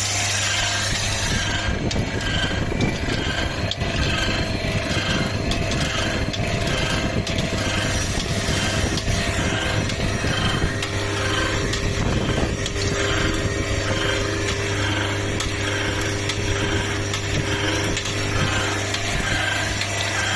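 Automatic screw slotting machine running, its twin milling cutters cutting slots in screw heads over a steady motor hum. The feed cycle repeats a little under twice a second.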